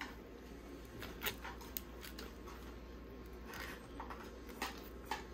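Scattered light clicks and crinkles, about eight in all, from a kitchen knife and aluminium foil as foil-wrapped baby back ribs are probed for tenderness, over a faint steady hum.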